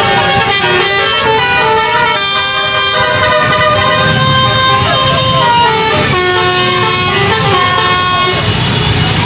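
A tour bus's Basuri telolet horn playing a tune: held chords of several tones, each note lasting about half a second to a second before the pitch changes, over a low rumble.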